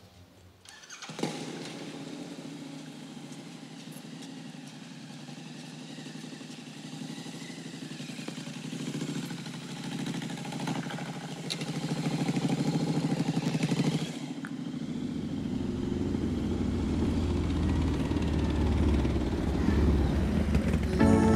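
A motor vehicle engine, motorcycle-like, running with a steady drone that starts suddenly about a second in and grows louder. It drops sharply about fourteen seconds in, then builds again.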